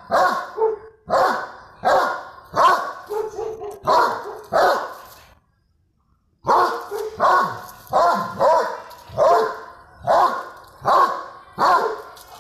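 Young Doberman pinscher barking repeatedly, about one to two sharp barks a second, with a break of about a second midway.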